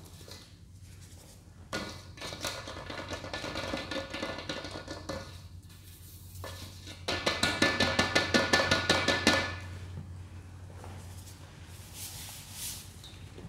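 Hands working a heap of Ajax cleanser and baking soda powder in a metal colander: crunchy rubbing and squishing, then a quick run of about a dozen pats, about five a second, against the metal bowl, followed by softer rubbing.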